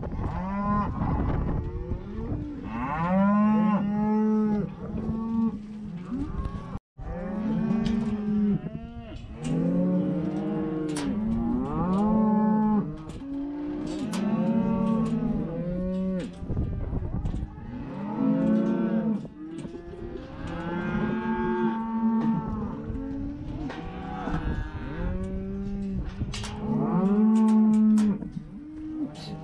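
A herd of cattle mooing and bawling, many long calls overlapping one after another, with a short break about seven seconds in.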